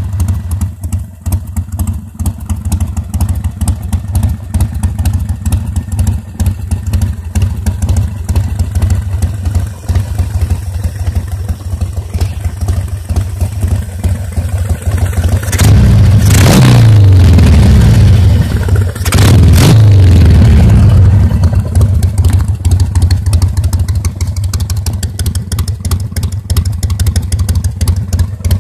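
Harley-Davidson Sportster 1200 Seventy-Two's air-cooled V-twin, fitted with a Screamin' Eagle engine kit, idling, then revved twice a little past the middle. Each rev is held for about one to two seconds before it falls back to idle.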